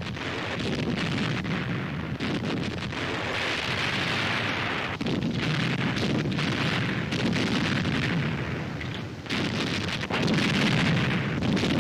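Artillery barrage: shells bursting one after another in a dense, continuous rumble, with short lulls between runs of blasts. It is loudest near the end.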